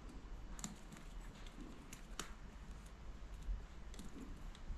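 Faint handling of electrical wiring, with a few small sharp clicks as cable cores are worked into a connector block.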